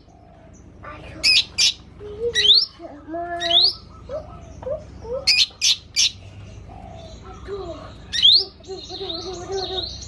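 Cucak ijo mini (a small green leafbird) singing a varied song of quick rising whistles and sharp high notes mixed with lower warbled phrases. The song is packed with mimicked calls of other birds.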